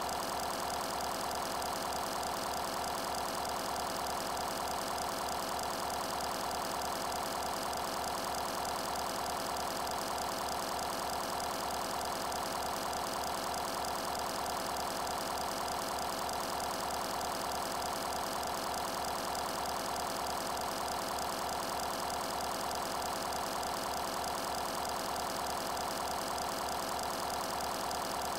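A steady, unchanging machine-like hum with a fast, even pulse.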